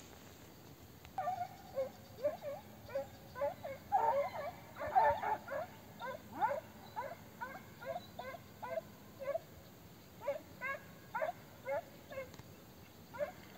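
Hunting hounds baying: a run of short, repeated yelping calls, about two a second, starting about a second in, with a brief lull near the middle. This is the cry of hounds working a hare's trail.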